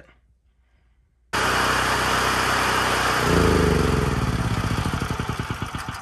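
Firman portable generator's 439 cc single-cylinder OHV engine comes in running about a second in. About two seconds later it is shut off and coasts down: its firing pulses slow and its pitch falls as it winds toward a stop.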